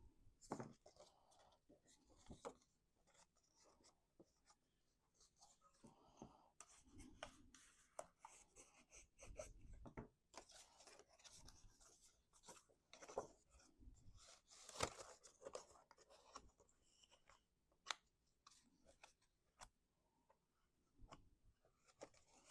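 Faint rustling, scraping and light clicking of cut cardstock being handled and folded by hand along its score lines.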